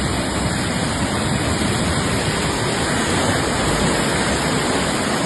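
Fast-flowing floodwater rushing, a steady loud noise without a break.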